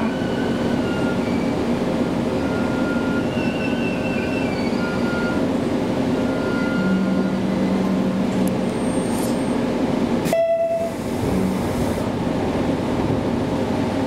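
Steady running hum inside a JR Kyushu KiHa 200 diesel railcar as it comes to a stop at a platform and stands with its engine idling. A brief sharp tone sounds about ten and a half seconds in.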